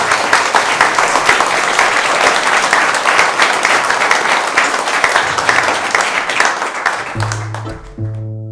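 Wedding guests applauding, a dense clapping that thins out near the end as music with short, repeated low notes begins.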